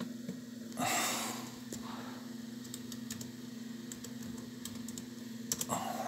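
Irregular light clicks of laptop keys, with a cluster of quicker clicks near the end. A breathy exhale comes about a second in, and a steady low hum runs underneath.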